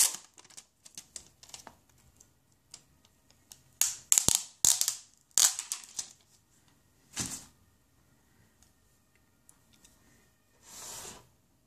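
Protective plastic film peeled off a new smartphone and handled, giving a run of sharp crackles and clicks, busiest about four to six seconds in, with a softer rustle near the end.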